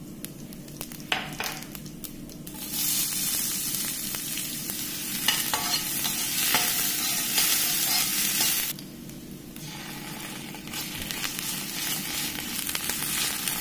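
Chopped onion frying in hot oil with mustard seeds in a stainless steel pan, stirred with a metal spoon. A few crackles at first, then a loud sizzle starts about three seconds in, drops back about nine seconds in, and builds again near the end.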